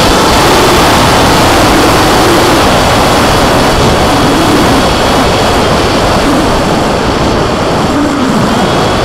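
Loud, steady wind rush over the microphone of a camera riding on a Skyfun foam RC plane, with its electric motor and propeller running under it as a thin steady whine.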